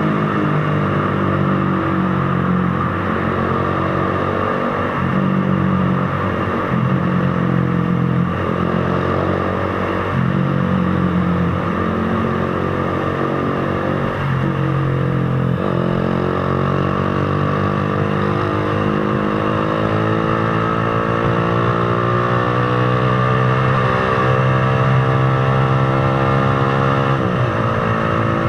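Z200 motorcycle engine riding through the gears: the pitch climbs steadily, then drops sharply at each shift, several times over.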